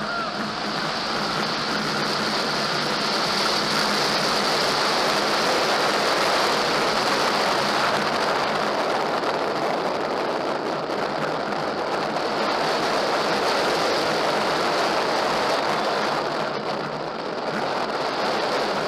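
Steady rushing wind noise of a roller coaster ride at speed, an even hiss that dips briefly near the end.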